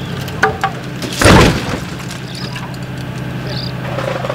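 A crashed Hyundai sedan, pulled by a chain off its side, drops back onto its wheels with one loud crashing thud about a second in, after a few light clicks. A steady engine hum runs underneath.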